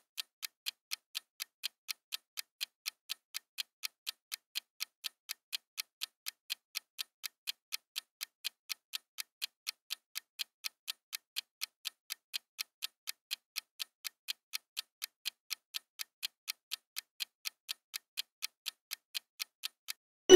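Countdown-timer clock ticking evenly, about three ticks a second. A bell-like chime starts right at the end, as the time runs out.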